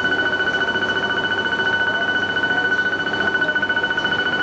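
Station departure warning buzzer sounding a steady, high-pitched buzz with a fast flutter, believed to signal an impending train departure.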